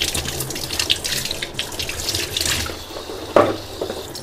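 Kitchen tap running into a sink, splashing unevenly as eggs are rinsed clean by hand, with one brief louder burst about three seconds in.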